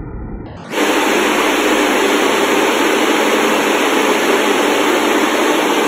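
Water spraying and splashing inside a stainless-steel deaerator tank. A duller low rumble switches abruptly, under a second in, to a loud, steady rushing hiss.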